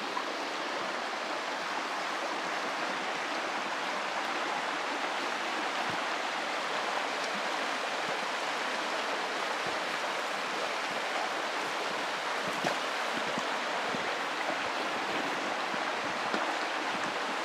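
Steady rush of running water from a small stream.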